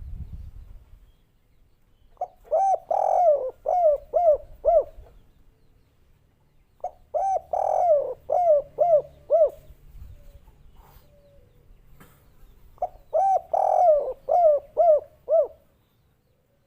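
Spotted dove (derkuku) cooing its 'kuk 3' song, a local wild bird. It sings three phrases a few seconds apart, and each phrase is a quick run of several short, mellow coos.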